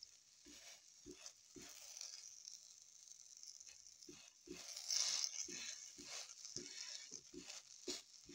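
Bread sizzling faintly in a frying pan, with a run of soft, irregular taps, about two a second, as a spatula presses and pats it down. The sizzle swells briefly about five seconds in.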